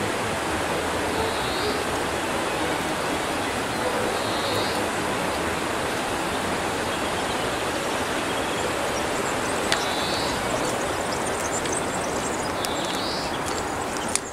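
Steady, even rushing noise, with four faint, brief high chirps spread through it.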